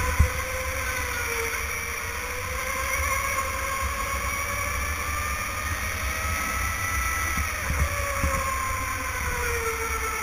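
Electric go-kart motor whining, its pitch rising and falling with speed through the corners, over a steady low rumble from the kart's vibration on the track, with a few small knocks.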